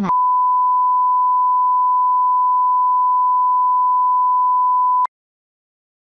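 A steady electronic sine tone at about 1 kHz, one unchanging pitch held for about five seconds, then cut off abruptly with a click.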